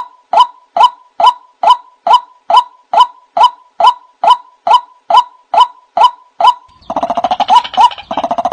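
White-breasted waterhen calling: a single short 'wak' note repeated steadily, a little over twice a second. Near the end a faster, stuttering run of calls overlaps it for about a second.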